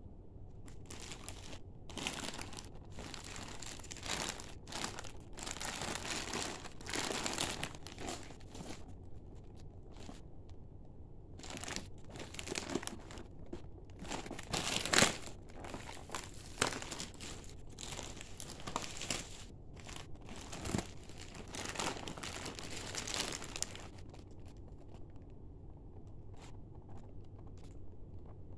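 Plastic wrapping of a multi-roll toilet-paper pack crinkling as it is handled, in irregular bursts with a lull in the middle and a sharp crackle about halfway through. It grows quieter near the end.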